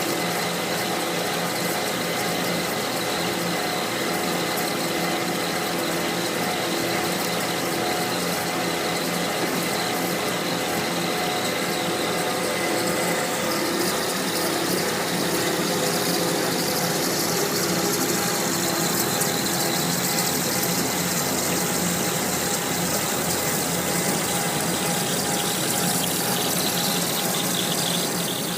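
A machine running steadily, with a constant hiss and several steady humming tones; the high hiss changes about halfway through.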